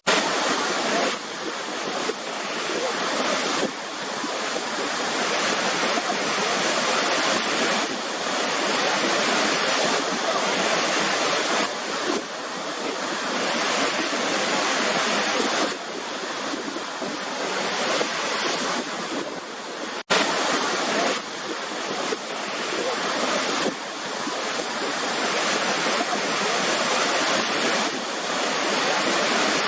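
Waterfall crashing, a dense, steady rush of falling water that swells and eases every few seconds. The sound cuts out for a split second about twenty seconds in.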